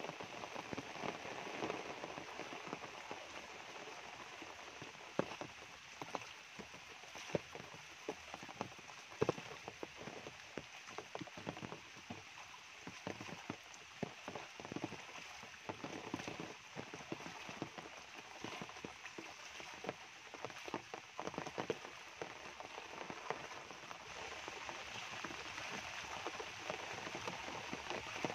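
Steady rain falling on dense tropical foliage and wet ground, with scattered sharper ticks from single drops.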